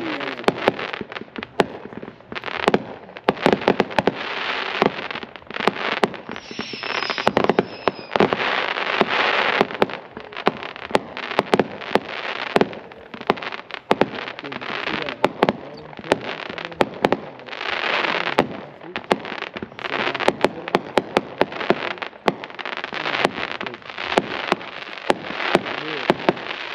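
A 500-gram multi-shot consumer fireworks cake firing a long, irregular barrage of shots, with crackling between the reports and, once, a brief falling whistle.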